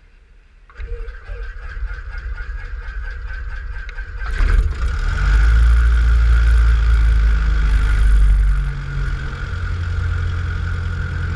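Cessna 172's piston engine being started: the starter turns the engine over in an even rhythm for about three seconds, then the engine catches and runs loud and steady, easing back to a lower setting near the end.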